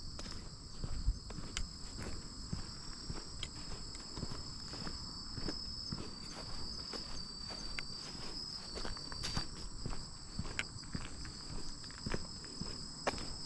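A steady chorus of insects trilling in two high-pitched bands, with a person's footsteps along a walking path.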